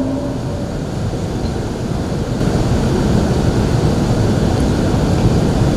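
Steady low rushing background noise picked up by the open microphone, slowly growing louder, with no voice in it.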